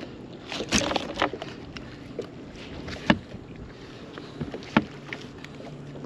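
A few sharp knocks and rattles against a boat deck as a landed striped bass is worked out of the landing net and lifted, with a cluster about a second in and single louder knocks about three and nearly five seconds in, over a steady background hiss.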